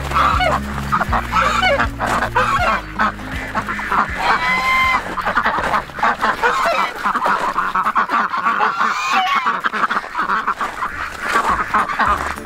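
A flock of white domestic ducks quacking over one another: many short, overlapping calls with no pause.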